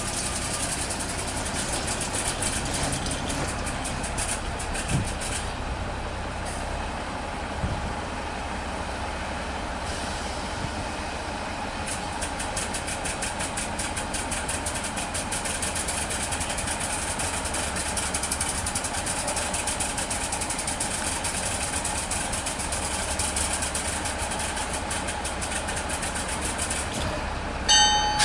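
Small narrow-gauge diesel locomotive running slowly while hauling coaches, its engine giving a steady, rapid clatter. A sudden loud high-pitched tone comes near the end.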